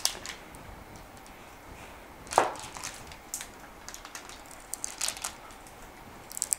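Wooden rolling pin rolled and pressed over Oreo-crumb dough between sheets of baking paper, flattening it thin, with a few scattered knocks and paper rustles; the loudest knock comes about two and a half seconds in.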